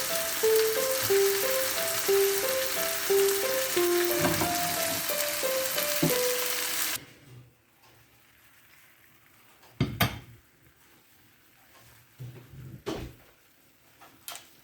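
Pork tenderloin sizzling hard in olive oil in a frying pan, a dense hiss under background music; both cut off suddenly about halfway through. After that it is quiet apart from a few short knocks.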